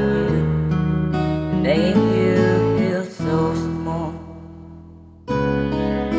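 Acoustic guitar music with strumming. It dips briefly about three seconds in, fades away over the next two seconds, and starts again abruptly about five seconds in.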